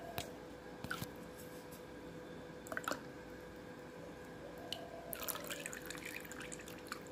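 Coconut oil infused with curry leaves trickling and dripping into a glass jar as the pour tapers off: faint scattered drips and small ticks, thickest a little past the middle.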